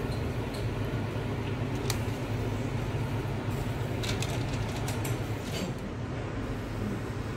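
Steady low hum of kitchen ventilation, with a few light clicks and taps.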